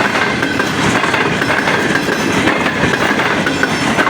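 Passenger train passing close by, its coaches' wheels clattering over the rail joints in a steady, loud rolling rumble.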